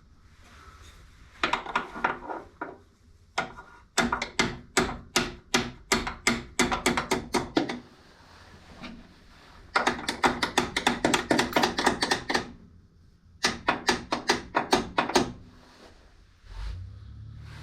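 Hammer blows ringing off metal parts, in four bursts: a few strikes, a steady run of about three a second, then two quicker flurries.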